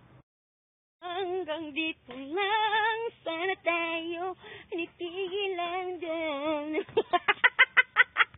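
A woman's voice singing unaccompanied, with wavering, sliding pitch, starting about a second in. Near the end it breaks into a quick run of short, repeated syllables.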